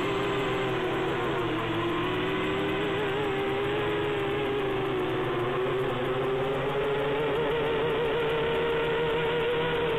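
A small quadcopter's electric motors and propellers whining steadily in flight, the pitch wavering slightly up and down.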